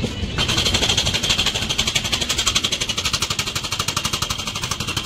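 Express train passing, its last coach going by and its low rumble drawing away. Over the rumble runs a rapid, even, high-pitched pulsing of about nine pulses a second, starting half a second in; it is the loudest sound.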